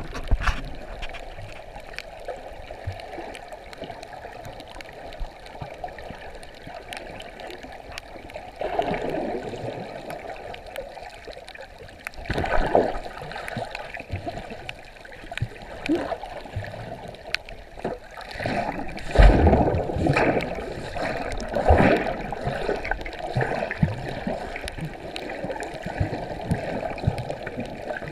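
Water noise recorded with the camera underwater: a muffled rushing and gurgling with many faint scattered clicks, and several louder surges of water noise every few seconds, the strongest about two-thirds of the way through.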